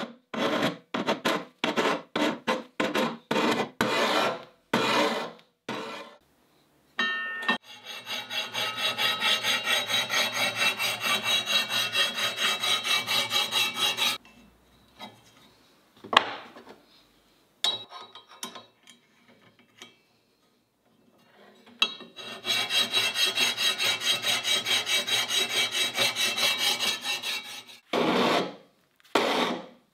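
Hand file rasping across the edge of a steel cleaver blade, truing up an edge that was sharpened out of straight. First comes a run of separate strokes, about two a second, then a fast steady run of filing strokes. Midway there is a pause with light metal clicks, after which fast filing resumes and ends in separate strokes.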